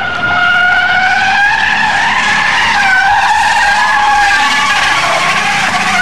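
Car tyres squealing continuously as a car spins in a burnout, a long wavering screech.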